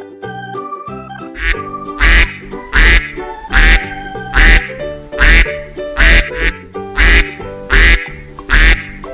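A duck quacking in a steady series, about ten loud quacks roughly one every 0.8 seconds, starting about a second and a half in. Keyboard music plays underneath.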